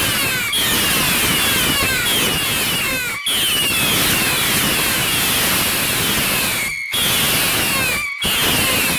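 A volley of VPI/Weco Tolle Lola whistling rockets launching, many shrill whistles overlapping, each falling in pitch, over the rushing hiss of the rocket motors. The sound breaks off abruptly for a moment a few times.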